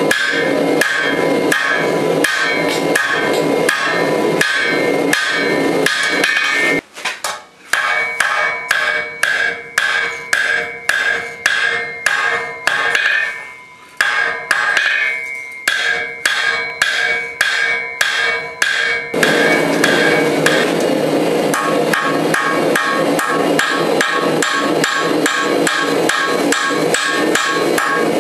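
Hand hammer forging a red-hot steel dagger blank on an anvil: a steady run of blows, about two a second, with the anvil ringing between them. It breaks off briefly about seven and fourteen seconds in, and the blows come faster and louder from about two-thirds of the way through.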